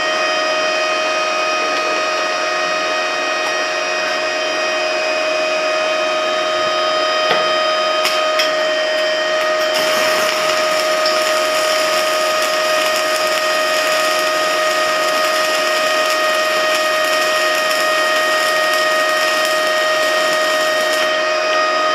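Stick welding with a 3/32-inch electrode on an inverter welder set at about 50–55 amps: a few scratching clicks as the arc is struck about eight seconds in, then continuous arc crackle and sizzle from about ten seconds in until it stops just before the end, over a steady machine whine. The current is too high for the thin plate, which burns through.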